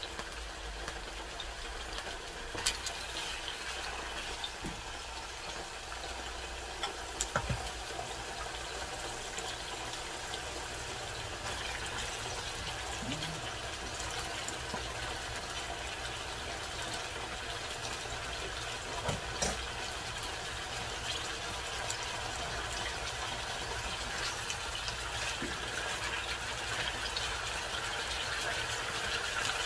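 Marinated chicken pieces sizzling in hot oil in a nonstick frying pan: a steady hiss with scattered small pops and a few louder clicks. Near the end a spatula turns the pieces.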